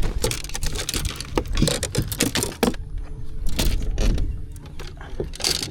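Clattering, knocking and rattling of a fish being landed and handled in a boat, with wind rumbling on the microphone. The knocks come thick for about the first two and a half seconds, then thin out over a faint steady hum.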